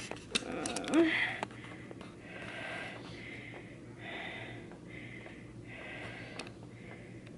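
A person breathing audibly and rhythmically, a soft hiss of breath about once a second. A few faint clicks and a brief louder sound come in the first second or so.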